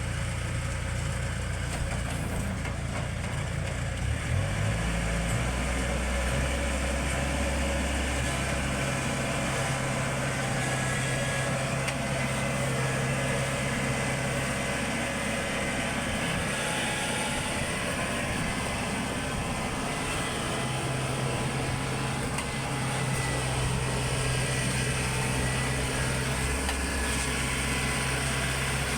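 Combine harvester's engine running steadily, its note shifting up and down several times as the revs change while the machine is moved.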